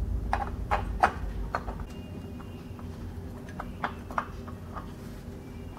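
Light, irregular clicks and taps as a new oil filter is turned by hand onto its threaded mount on a Harley-Davidson Softail engine, over a low steady hum.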